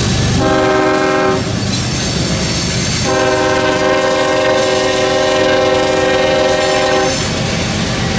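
Freight diesel locomotive air horn sounding a short blast and then a long blast of about four seconds, over the low rumble of a train on the tracks.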